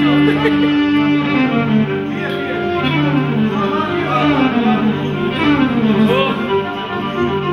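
Amplified violin played with a bow: a melody with quick slides and wavering ornaments over held low accompaniment notes.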